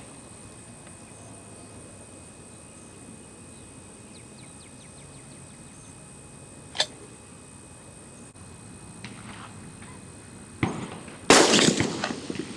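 A DPMS AR-15 rifle in .223 fires a single shot near the end, a loud sudden crack with a trailing echo, after a long quiet stretch broken only by a faint click midway.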